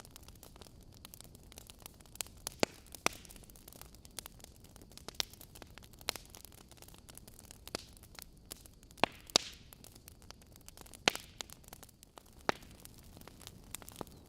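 Wood logs burning in a fireplace, crackling: about a dozen sharp, irregularly spaced pops, a few of them loud, over a low steady hiss.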